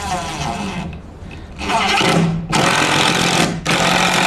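Power drill driving a Spax screw into plywood without a pilot hole, the motor running in short spurts with a steady hum from about one and a half seconds in.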